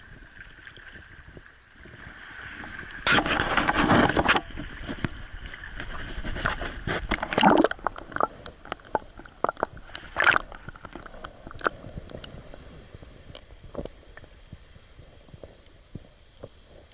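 Water splashing and sloshing in two loud bursts a few seconds apart, followed by scattered sharp knocks and clicks.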